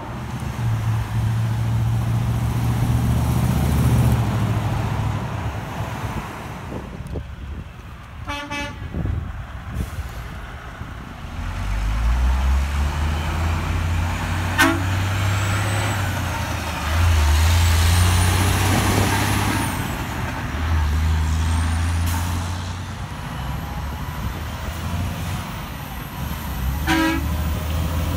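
Heavy diesel trucks driving past with their engines running low, including Kenworth T800s fitted with Grover 1609 air horns. Three short air horn toots sound: about eight seconds in, about halfway, and near the end.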